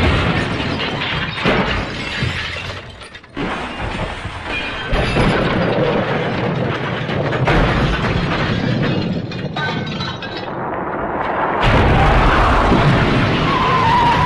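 Loud cartoon-style crashing and breaking sound effect, of the kind of the MGM elephant smash crash, mixed with music; it is cut off abruptly about three seconds in and changes sharply near the end.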